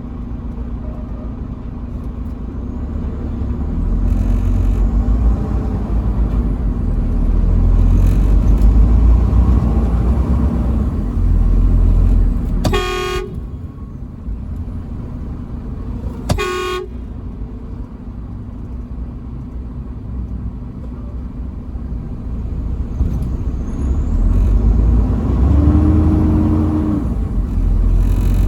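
Truck horn sounding two short blasts about four seconds apart, a little before halfway, over the steady low rumble of the truck's engine and road noise.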